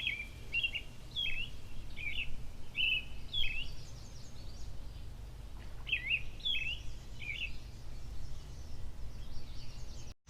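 A songbird singing two phrases of quickly repeated down-slurred chirps, the second phrase starting about six seconds in, over a steady low outdoor rumble.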